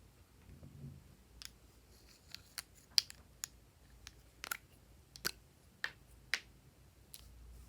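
Glossy slime being pressed and kneaded by hand, trapped air popping out in about a dozen sharp, irregular clicks and snaps.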